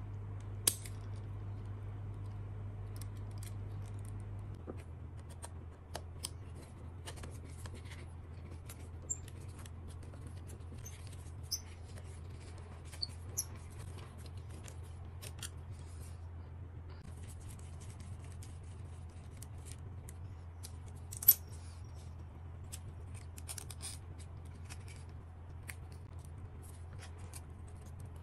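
Small scattered clicks, ticks and light scrapes of metal hand tools and plastic parts as a DJI Mini 3 Pro drone is taken apart, with one sharper click about three quarters of the way in, over a steady low hum.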